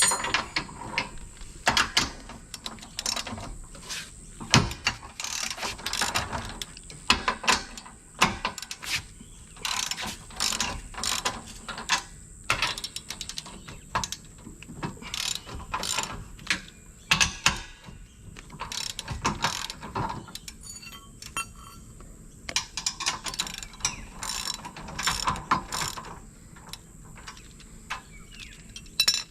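Hand socket ratchet clicking in repeated bursts as bolts are worked, with clinks of steel spanners and fittings between them.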